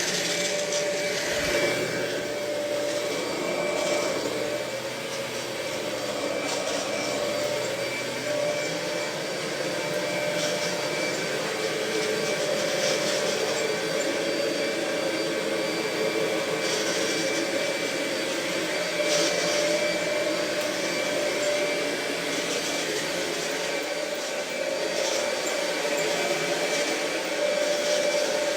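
Kirby G4 Tech Drive bagged upright vacuum cleaner running continuously: a steady motor whine, with brief swells of hiss every few seconds.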